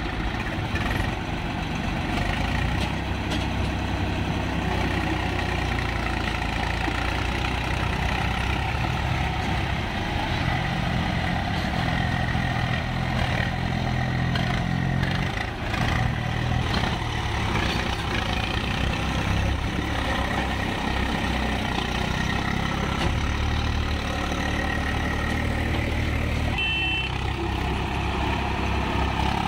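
Swaraj 735 FE tractor's three-cylinder diesel engine running steadily under load as it hauls a loaded sand trolley through wet mud.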